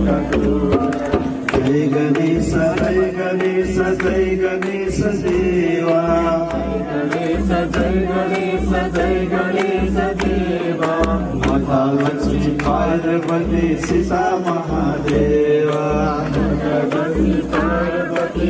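Voices singing a devotional aarti bhajan through a microphone, over a low, steady beat that falls about once every second and a bit.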